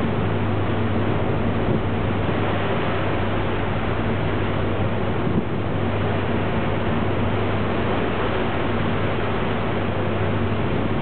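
Ferry's engines running with a steady low hum, under a constant rush of wind and water.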